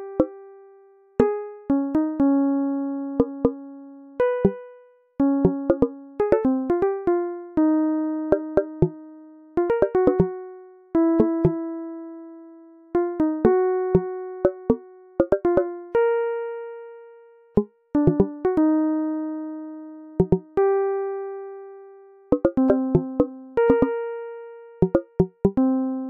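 Background music: sparse struck notes that ring and fade, some in quick clusters with light clicks, with short pauses between phrases.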